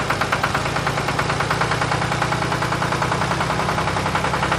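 Tractor engine idling with a steady, fast, even chug.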